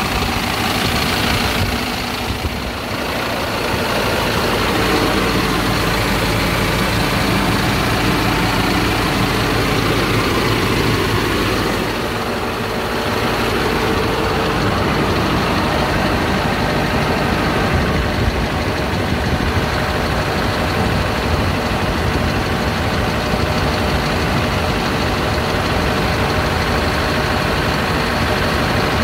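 Scania R tipper truck's diesel engine idling steadily, heard close up, briefly a little softer about two seconds in and again about twelve seconds in.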